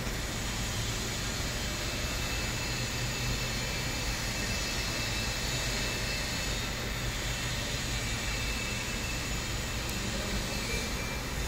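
Steady mechanical running noise: a low, even hum under a constant hiss.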